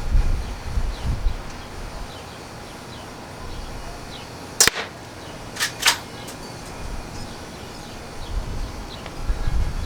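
Barra 1866 lever-action air rifle firing once, a single sharp crack about halfway through, then two quick clicks within the next second and a half. Wind rumbles on the microphone at the start and near the end.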